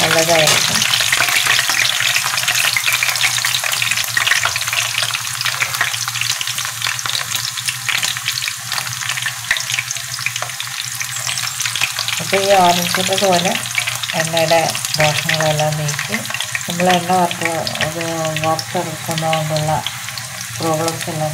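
Ragi-battered orange fritters deep-frying in hot oil in a nonstick pan: a continuous sizzle with fine crackles.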